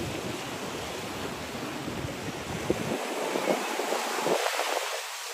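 Waves washing onto a sandy beach, a steady hiss of surf with wind buffeting the microphone.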